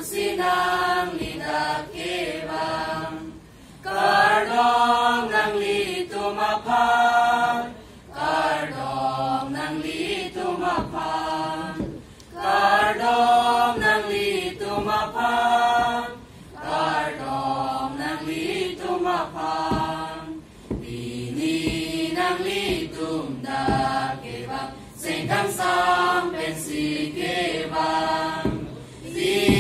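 A mixed choir of school students, boys and girls, singing a song together in phrases a few seconds long, with short breaks for breath between them.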